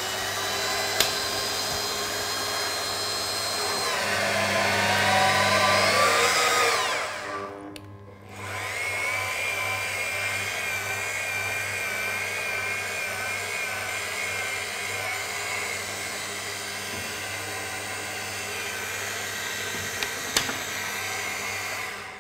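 Metabo MAG 50 magnetic drill's motor driving a tap into a drilled hole in steel plate. The motor grows louder and its pitch sags for a few seconds as the tap cuts. It stops briefly about seven and a half seconds in, then runs again with a steady, slightly wavering whine as the tap is backed out of the hole.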